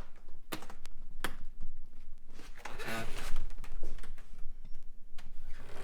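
A window sash being pushed shut against a foam insulation board: a few sharp knocks and creaks as the frame squeezes the board, loudest about three seconds in.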